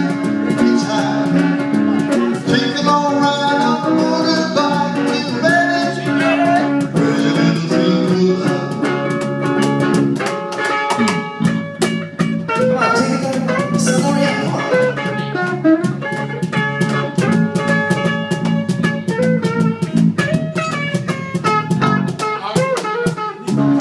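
Live band playing a song: guitar over drums, with singing.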